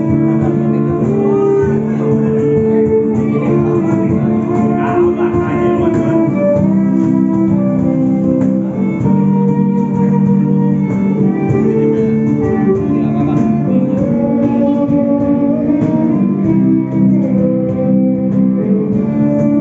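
Live music led by guitar: plucked and strummed guitar playing sustained chords and a melody line, loud and continuous.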